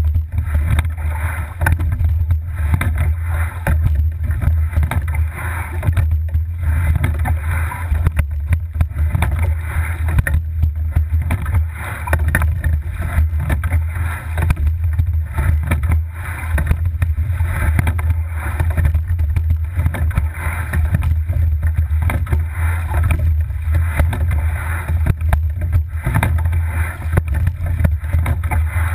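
Racing double scull under way, heard from a camera fixed on the boat: water rushing along the hull and the oars working in a steady rhythm of about one stroke every two seconds, over a constant low rumble of wind on the microphone.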